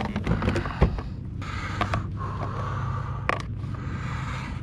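Hard plastic creaking and rubbing as a plastic fish ruler is pulled out and handled on a plastic kayak: a few sharp clicks in the first second, then a drawn-out creak of about three seconds with one more click partway.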